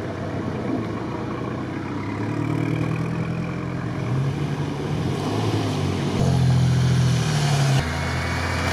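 Off-road 4x4 engines revving under load as they push through deep snow, the pitch rising and falling. Near the end the sound cuts abruptly to a steadier engine drone.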